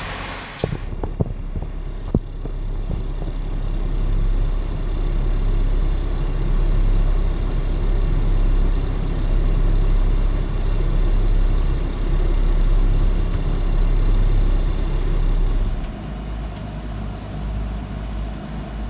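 Cummins 6BT 5.9 inline-six marine diesel engine running steadily with a deep, even hum, freshly started with raw cooling water flowing. A few sharp knocks come about a second and two seconds in, and the engine sound drops a little and changes character near the end.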